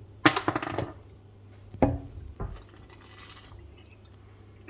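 Glass vodka bottle and glasses clinking: a quick run of clinks near the start, then two single knocks around two seconds in.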